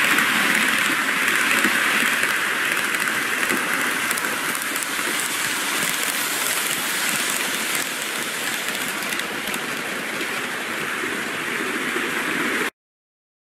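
N gauge model commuter trains (205 and 201 series) running on the layout: a steady rattling whir of wheels on the track and the motors, easing slightly as the trains pass, then cutting off suddenly near the end.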